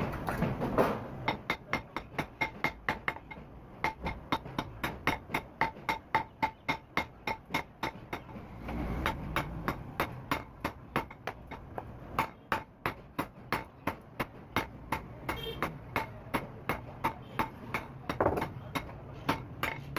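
Hand hammer blows on a red-hot steel bar lying on a block anvil, forging out the bar's point: a steady, ringing run of about three strikes a second, with a couple of short pauses. The bar is being forged into an earth-drill tool cut from a vehicle axle.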